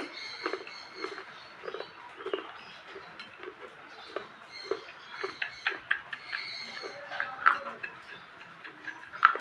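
Close, irregular crunching and chewing of crunchy baked clay, a string of short crackling snaps with a louder crunch near the end.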